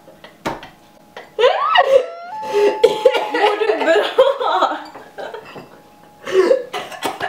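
Two young women laughing hard. The fit starts about a second and a half in, with breathless, squealing bursts that run for a few seconds, and a shorter burst follows near the end.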